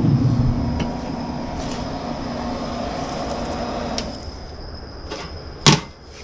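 Steady mechanical hum that fades over the first few seconds, under a thin high whine, then one sharp clack near the end.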